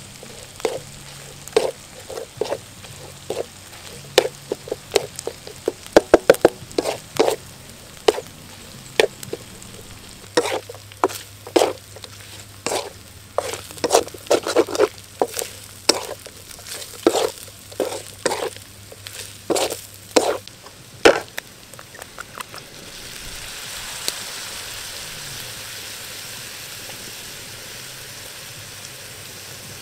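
A spatula scrapes and knocks against a metal wok in quick, irregular strokes as frog meat with spice paste is stir-fried. About 23 seconds in the stirring stops and a steady sizzling hiss rises as liquid is poured into the hot wok.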